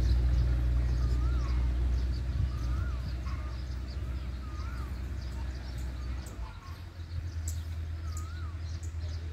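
A bird calling a short rising-and-falling whistled note over and over, about once every second or so, over a steady low rumble that drops off about six seconds in.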